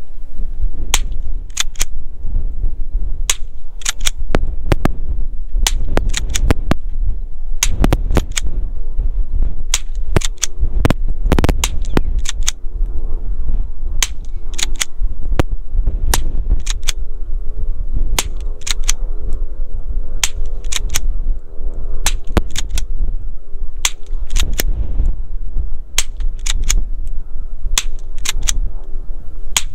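Rossi Gallery .22 pump-action rifle firing .22 Short rimfire rounds in a long string of sharp cracks, roughly one a second, with the slide racked between shots. A steady low rumble of wind on the microphone lies under the shots.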